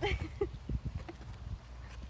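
Wind buffeting the microphone in uneven low rumbles, with a few light knocks.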